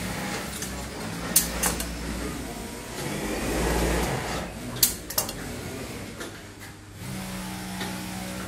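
Industrial sewing machines running in a workshop: a steady motor hum with a swelling run of stitching about three to four seconds in, and a few sharp clicks, two about a second and a half in and two about five seconds in.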